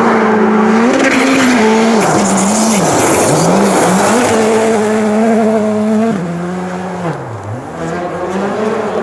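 Škoda Fabia R5 rally car's turbocharged four-cylinder engine at high revs, coming down a gravel stage and passing. The pitch drops and climbs again twice, about three seconds in and near the end, as the driver lifts off and picks up again, and the sound fades a little as the car goes away.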